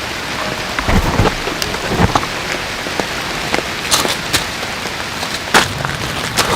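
Heavy rain falling steadily, with many sharp taps of drops striking close by and a brief low rumble about a second in.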